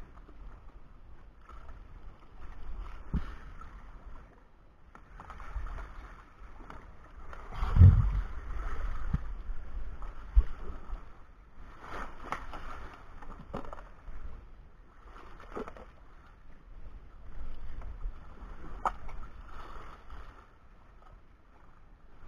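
Water sloshing and gurgling around a spearfisher in the sea, swelling and fading every couple of seconds, with a few dull knocks, the loudest about eight seconds in, and a sharp click near the end.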